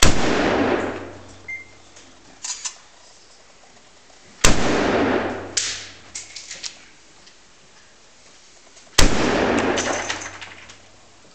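Three single rifle shots about four and a half seconds apart, each ringing out and dying away over about a second and a half inside a roofed firing booth. Faint clicks can be heard between the shots.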